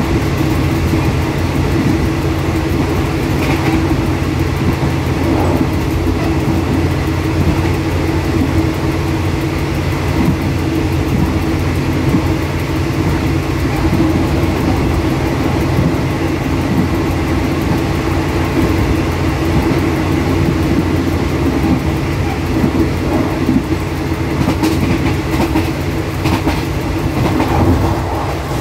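Diesel locomotive heard from inside its cab running at speed: a steady engine drone with the rumble of wheels on rail. A few sharper rail clicks come about three seconds in and again near the end.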